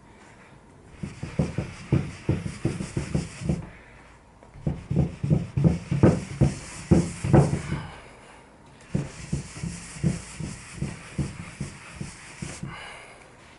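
Microfiber cloth rubbing briar wax into charred softwood in quick back-and-forth strokes, about four a second, pausing briefly about four and eight seconds in.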